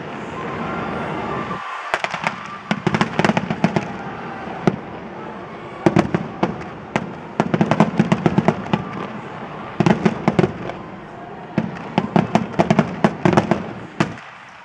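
Fireworks display: shells bursting in volleys of many quick, sharp bangs and crackles, several clusters a few seconds apart, over a continuous rumble.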